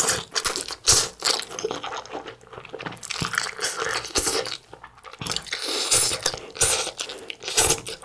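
Close-miked slurping and chewing of spicy stir-fried instant noodles, in a run of short, irregular wet bursts as mouthfuls of noodles are sucked in and chewed.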